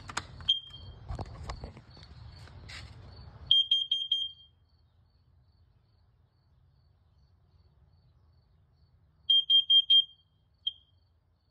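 First Alert carbon monoxide detector sounding its test alarm: after some handling clicks and a short chirp, it gives a group of four quick high-pitched beeps, then, about six seconds later, another group of four, then a single beep near the end. Four beeps then a pause is the carbon monoxide alarm pattern.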